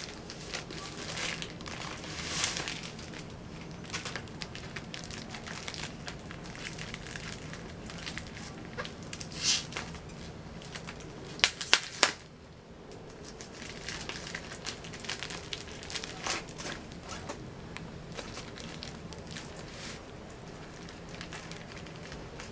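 Clear plastic packaging crinkling and a cloth bag rustling as they are handled, with a quick cluster of sharp clicks near the middle.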